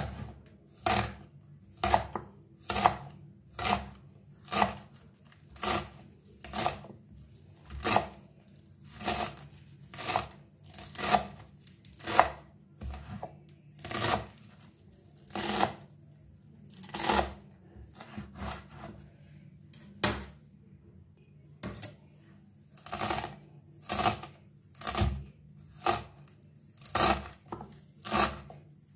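Kitchen knife chopping a bundle of gandana (Afghan leek) greens on a wooden cutting board: slow, even cuts, about one a second, each stroke through the stalks ending on the board.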